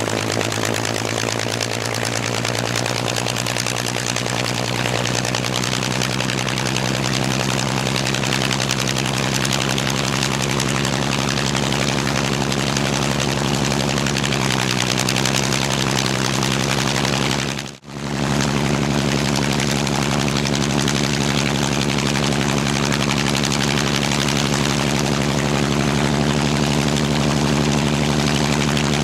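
Spitfire Mk XIV's Rolls-Royce Griffon V12 engine running steadily on the ground at low power, propeller turning. The engine note rises slightly about halfway through. A brief drop-out in the sound comes about two-thirds of the way in.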